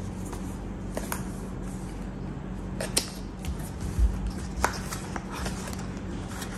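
A paperboard box being handled and opened: light scraping and rubbing of the card with a few sharp clicks as the flap is worked, and a dull thump about four seconds in as the box knocks the wooden table.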